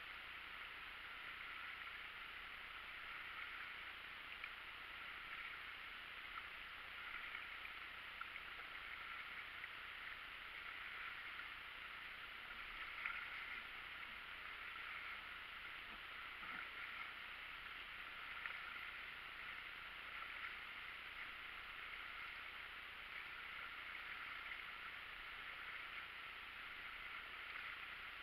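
Faint water gurgling and lapping around an inflatable raft paddled on calm water, swelling a little every second or two, with a few light knocks.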